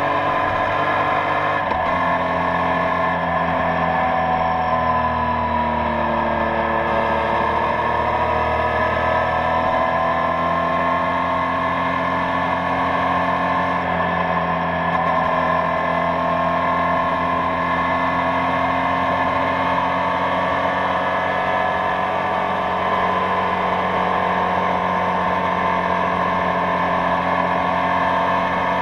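Yamaha Tracer motorcycle with its stock exhaust, engine pulling steadily at highway cruising speed. The engine note sags slightly and climbs back a few seconds in, then holds an even pitch, over a constant rush of wind and road noise.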